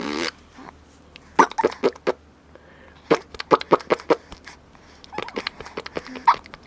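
A lip-buzzing raspberry, made to sound like a fart, ends just after the start. Then comes a baby's string of short, sharp mouth noises and grunts in three quick clusters, attempts to copy the raspberry.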